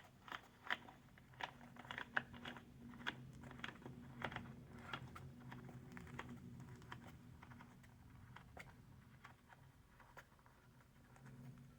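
Quick, irregular plastic clicks and rattles as a clip-on cup holder's clamp is opened and pressed onto a golf cart's frame, thick for the first few seconds and then thinning out. A faint low hum runs under much of it.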